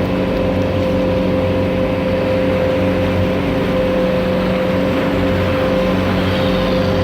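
A passenger boat's engine running steadily under way: an unchanging drone with a constant hum, over a rushing noise.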